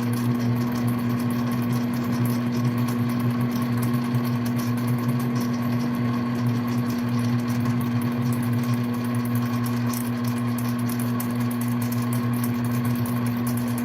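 Mini lathe running steadily while a 3/16 end mill cuts a workpiece held in a lathe-mounted vise: a constant motor hum with fine rapid chatter from the cut.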